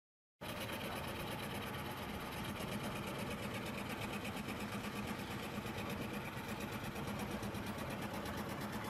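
Scroll saw running and cutting curved fretwork in a wooden board, its fine blade moving up and down in a fast, even rhythm; it starts suddenly about half a second in.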